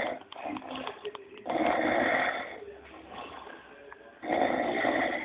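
A man snoring loudly: long, rasping snores about every three seconds, each lasting about a second, with quieter breathing between.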